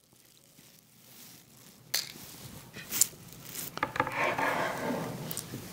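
Faint at first, then a few sharp clicks and knocks about two and three seconds in, followed by a stretch of rubbing and scraping as the calendar's bamboo frame and circuit board are handled and shifted on a tabletop.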